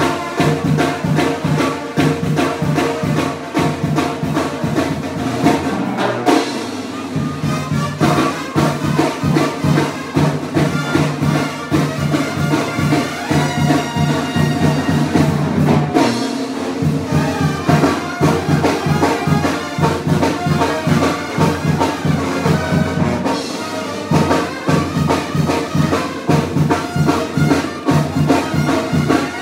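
Tamborazo band playing live: trumpets and trombones carry the melody over a steady beat of the bass drum and percussion. The drum beat drops out briefly about six, sixteen and twenty-four seconds in, with the brass holding on.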